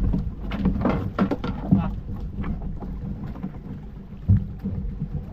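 A small boat's engine running with a steady low hum, with irregular sharp knocks on board, most of them in the first two seconds.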